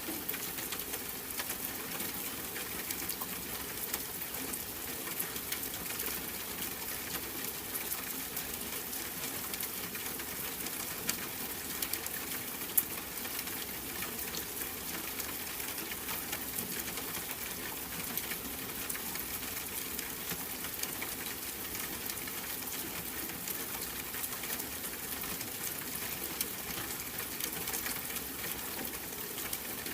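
Steady rain falling, a dense, even patter of drops with a couple of louder single taps near the middle.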